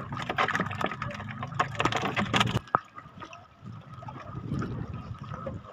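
Wet splashing and slapping of live small fish handled over a crate of fresh catch. After about two and a half seconds this gives way to softer water sloshing around a bamboo raft.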